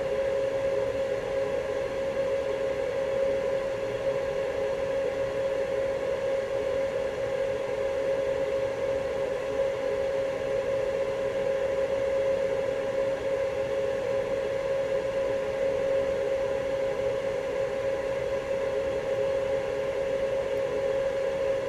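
Hot air rework station blowing steadily, a constant fan whine with a rushing hiss, as it reflows freshly applied solder paste.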